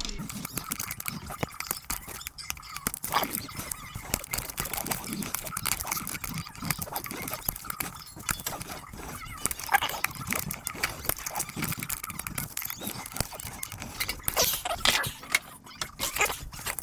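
Dense, irregular small metallic clicks and scraping as a tool pries at a snap ring deep inside a 4L60 automatic transmission case.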